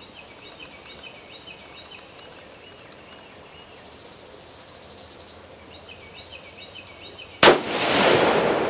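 A single shot from a Swiss K31 straight-pull rifle in 7.5 mm Swiss: a sharp crack about seven and a half seconds in, followed by a long rolling echo that fades over about two seconds.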